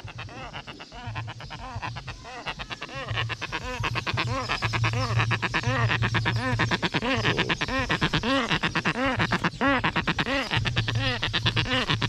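Woolly-necked stork calling at close range: a long run of rapid, pitched pulses, several a second, growing louder about four seconds in.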